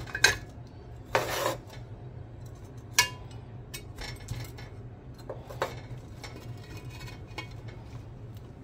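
Metal ladle scraping and clinking against the bottom and sides of a stainless steel pot of hot soapy water, working loose burnt-on residue that is starting to come off. A longer scrape comes about a second in and a sharp ringing clink about three seconds in, then lighter scrapes and taps.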